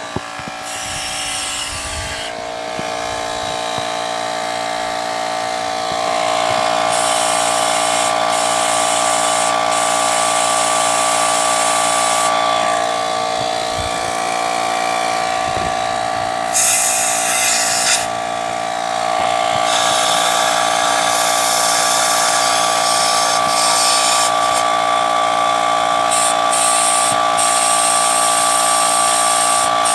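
Portable air compressor running with a steady hum while a blow gun sends repeated bursts of compressed air hissing through carburetor passages to clear out bad gas. The last burst is long.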